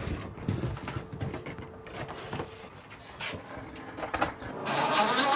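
Scattered knocks and clatter of wooden trim pieces and tools being handled while boat interior trim is pulled out. About four and a half seconds in, a small power tool's motor starts whirring with a wavering pitch.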